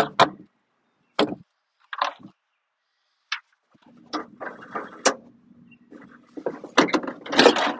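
Clunks and knocks of a riding mower's bagger chute and deck parts being handled, scattered single knocks, then a denser run of louder clattering near the end.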